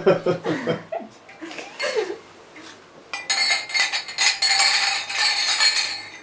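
Several stemmed glasses clinked together in a toast: a quick flurry of high, ringing chinks lasting about three seconds, coming in about halfway through after a couple of seconds of voices and chuckling.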